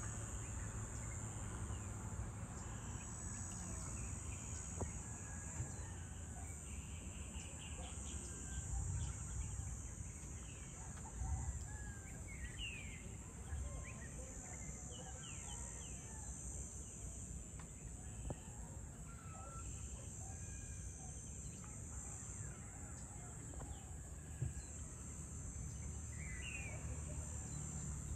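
Outdoor dusk ambience: a steady high-pitched drone of insects, with scattered short bird chirps and calls over a low background rumble.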